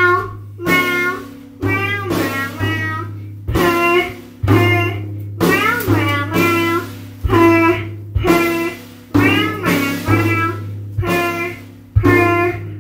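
Live home-band music: a repeated phrase of pitched, gliding notes, roughly one a second, each starting sharply, over a steady low drone.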